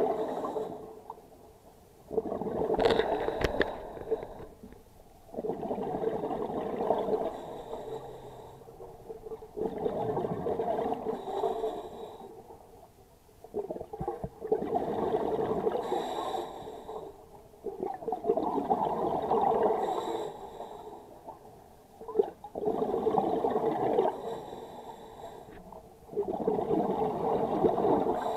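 Scuba regulator exhaust: a burst of exhaled bubbles every four seconds or so, heard underwater, with quieter gaps between breaths.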